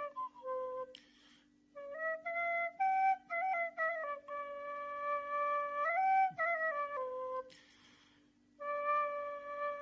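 Nay (end-blown flute) playing a slow solo melody of held notes and quick ornamented turns, with two short breaks for breath.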